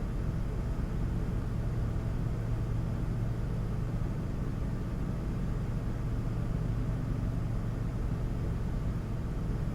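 Steady low hum with an even hiss over it, unchanging throughout: a fan or machine running continuously.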